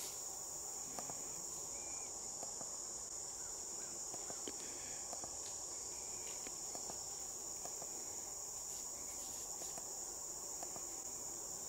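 Steady, unbroken high-pitched insect chorus, with a few faint ticks over it.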